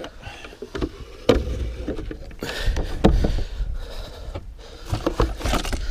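Knocks and thumps from handling a big muskie on a boat deck and measuring board, with sharp knocks about a second, three seconds and five seconds in.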